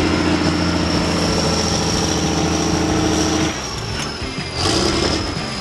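Tatra 8x8 truck's engine running steadily under background music, the sound changing abruptly about three and a half seconds in.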